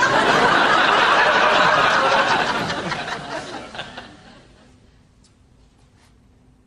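Studio audience laughing at a punchline, loud at first and dying away over about four seconds.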